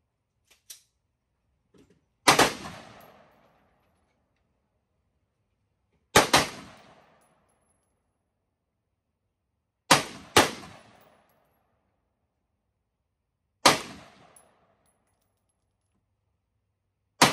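Ruger SFAR semi-automatic rifle firing six single shots a few seconds apart, two of them in quick succession about halfway through, each a sharp crack followed by a short echoing tail.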